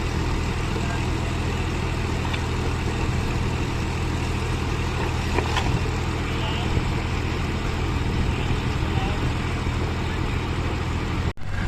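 Heavy diesel engine running steadily at a constant pitch, with a couple of faint clicks about halfway through. The sound drops out for an instant near the end.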